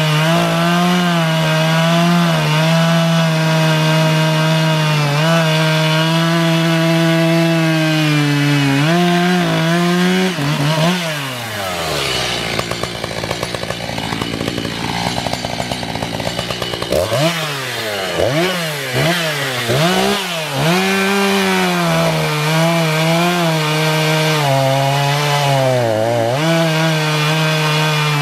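Echo CS-590 Timber Wolf two-stroke chainsaw cutting through a white oak log, engine held steady under load. About ten seconds in, the engine drops to idle for several seconds. It is then revved up and down in quick blips before settling back into a steady cut.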